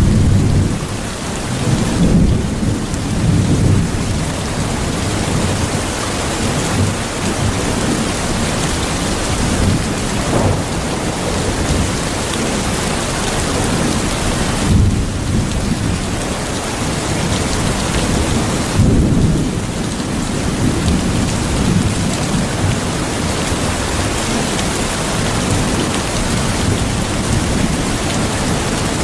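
Heavy rain falling in a steady, dense hiss, with low thunder rumbling underneath and swelling up several times, strongest about two seconds in and again near the twenty-second mark.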